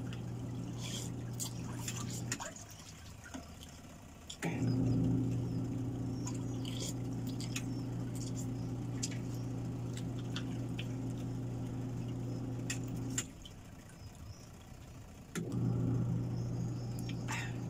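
Spoon clicking against a ceramic bowl and noodles being slurped while eating noodle soup, over a steady low mechanical hum that cuts out twice for about two seconds.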